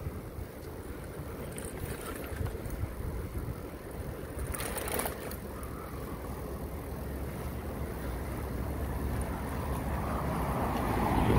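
Wind buffeting the microphone of a camera carried on a moving bicycle: a steady low rumble, with a short hissy noise about five seconds in and the noise swelling near the end.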